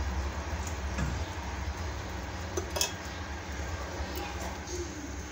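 Metal ladle clinking against a steel bowl of dosa batter: a light tap about a second in and one sharper, ringing clink near the middle, over a steady low hum.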